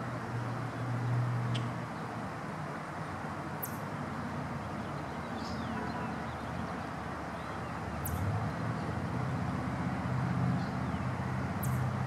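Eastern chipmunk giving its clucking alarm call: three short, sharp chucks, roughly four seconds apart, over a steady low rumble.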